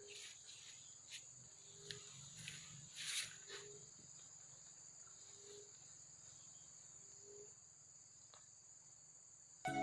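Faint, steady high trilling of insects, with a short low note repeating about every two seconds and a few light clicks and rustles in the first few seconds.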